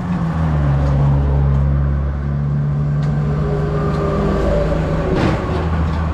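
A heavy truck's diesel engine running with a steady low drone as it passes on the road. A short noisy burst comes about five seconds in.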